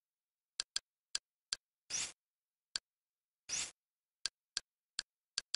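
Kodi media centre's Confluence-skin menu sound effects: a string of short, sharp clicks as the cursor steps through the menus, with two longer swishes about two and three and a half seconds in as items are selected.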